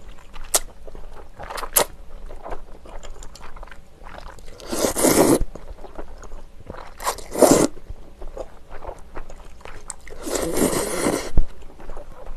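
Close-miked slurping of flat glass noodles out of hot soup: three long slurps, the last the longest and loudest, with small wet chewing clicks in between.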